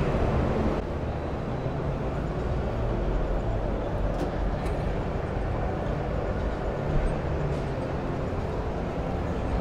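Steady background hubbub of a busy exhibition hall: indistinct crowd noise and a low rumble, with no distinct events.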